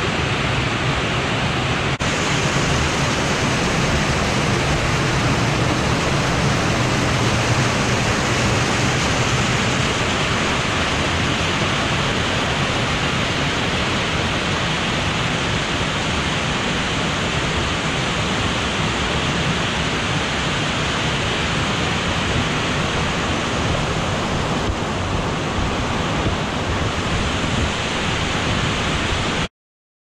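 A 25-metre waterfall, a steady rush of falling water that cuts off suddenly near the end.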